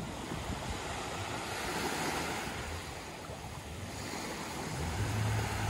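Small waves washing and lapping onto a sandy beach in a steady wash that swells and ebbs. Wind buffets the microphone with a low rumble, strongest near the end.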